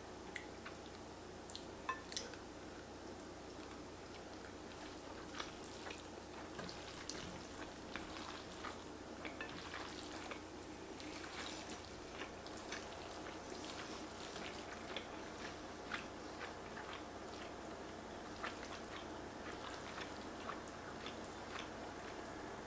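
Quiet eating sounds: wet chewing and small mouth clicks from a mouthful of noodles, with light taps of chopsticks and a spoon in the bowl. The clicks come irregularly over a faint steady hum.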